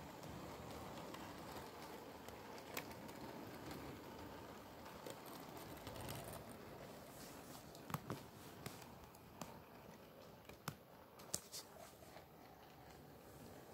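Model railway Pullman coaches running along the track: a faint steady rolling noise with a few sharp clicks as the wheels cross the rail joints, most of them in the second half.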